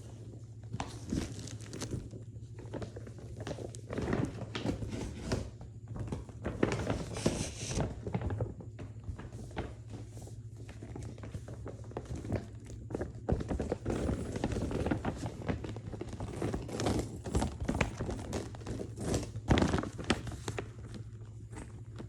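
Irregular knocks, taps and crinkling from something being handled and unwrapped, over a steady low hum.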